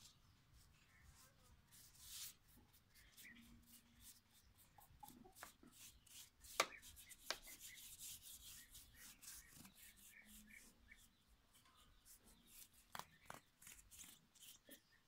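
Faint scratchy rubbing strokes of a small brush working rust treatment onto a sickle-bar mower's steel cutter bar, with two sharp clicks a little past the middle.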